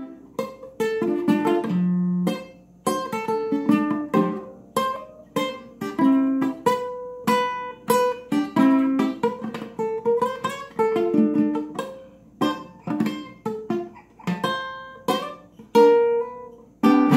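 Solo acoustic guitar playing a song's introduction: a melody of single plucked notes mixed with chords, each note ringing out and dying away.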